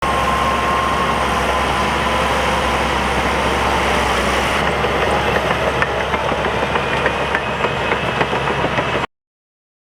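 Bulldozer's diesel engine running under load with a steady whine over it, joined about halfway through by rapid clanking from the steel tracks. It cuts off suddenly about a second before the end.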